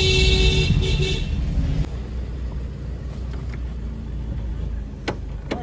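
Car driving, its engine and road rumble heard from inside the cabin: louder for about the first two seconds, then a lower, steady rumble.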